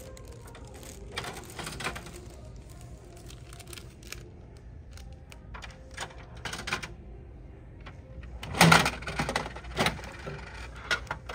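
Bandai gachapon capsule machine being worked by hand: ratchet clicks of its crank turning, then plastic clacks as a capsule is taken from the outlet flap, loudest about three quarters of the way through.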